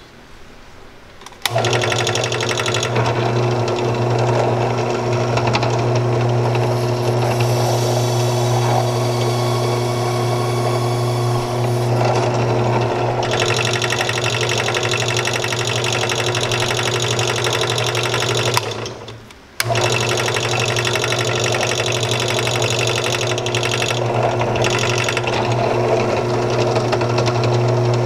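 Bench drill press motor running steadily, spinning a roll crimper in its chuck while a plastic shotshell hull is roll crimped. It switches on about a second and a half in, winds down just before nineteen seconds, and switches back on abruptly.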